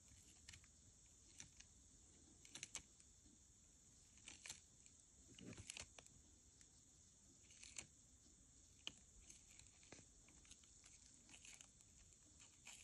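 Eastern Hermann's tortoise biting into a hand-held bok choy leaf: faint crisp crunches, short scattered snaps about every second, otherwise near silence.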